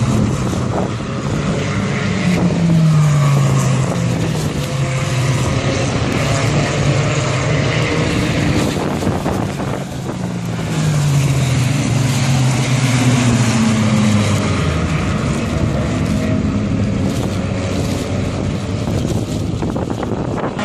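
Race cars running past on a wet track, their engine notes falling in pitch as they go by, in two waves: about two seconds in and again about ten seconds in. A hiss of tyre spray sits under the engines.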